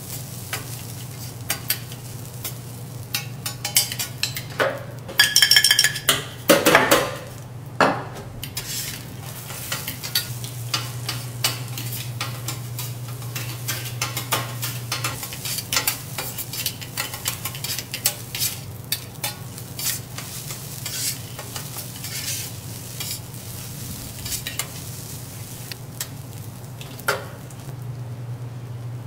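Steel spatula and fork scraping, chopping and tapping kimchi fried rice on a teppanyaki griddle, a fast run of clicks and scrapes over a sizzle. A ringing metallic clang comes about five seconds in, and a steady low hum runs underneath.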